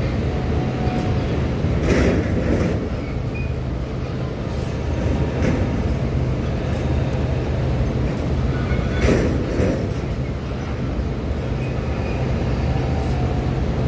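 Steady low diesel rumble of ship engines, with a low hum running under it. Two brief swells of louder noise come about two seconds and nine seconds in.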